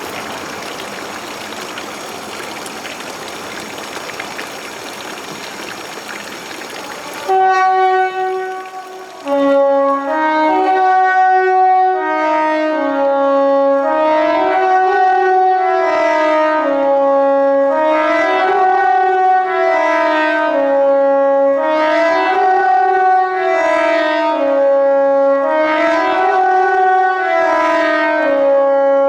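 Pneumatic KTG10 air-raid siren sounding the Swiss general alarm: a loud chord of tones stepping up and down in a steady cycle of about four seconds. It starts about seven seconds in, after a steady hiss that cuts off abruptly.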